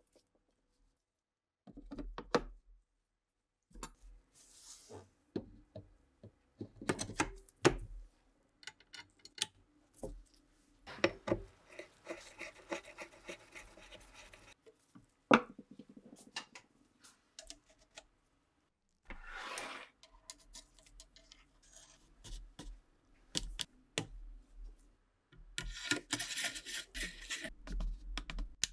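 Reassembly handling of a TOZ-16 rifle: wooden stock and metal parts knocked and set down in short clicks and knocks, a screwdriver scraping as it turns a screw in a steel fitting, and a metal band rubbing along the wooden stock near the end.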